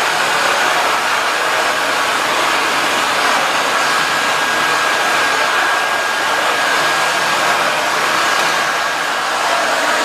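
Nilfisk GM80 canister vacuum cleaner running steadily, drawing air through a flat hard-floor nozzle pushed back and forth over the floor. A thin steady whistle joins the motor noise about a third of the way through.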